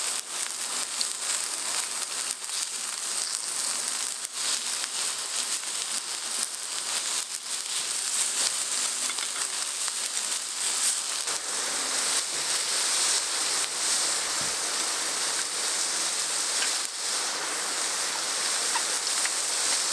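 Beef slices sizzling on a hot griddle pan over a portable butane stove: a steady frying hiss dotted with many small pops and crackles.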